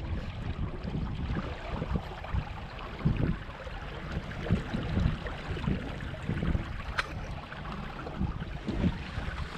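Wind buffeting the microphone over the wash of water along the hull of a small sailboat under sail, with one sharp tick about seven seconds in.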